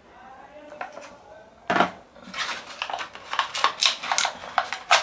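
Cardboard packaging insert and plastic wrap being handled by hand: a sharp knock about one and a half seconds in, then a run of quick clicks and crinkles.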